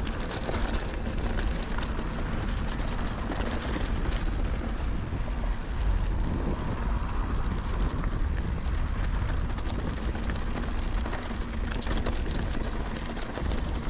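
Riding noise from a Santa Cruz Bronson mountain bike on a dirt trail: tyres rolling over the ground and the bike rattling over bumps, with wind rushing over the microphone.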